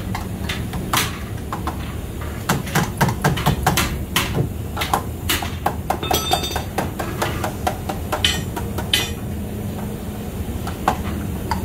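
Irregular hammer blows on metal, one every half second or so, with one blow about six seconds in that rings on. A steady low hum runs underneath, and the blows thin out near the end.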